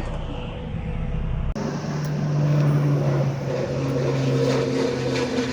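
A passing vehicle's engine drones steadily with a low hum, starting abruptly about a second and a half in.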